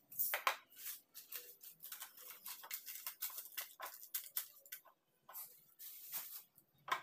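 Irregular rustling and crinkling as groceries and their packaging are handled, with a short pause about five seconds in.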